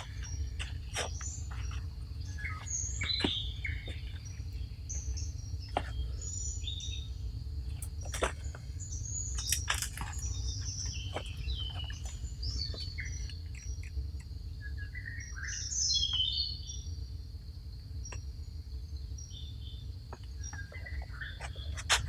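Forest ambience: many birds chirping and calling in short scattered phrases over a steady high insect drone, with a low rumble underneath.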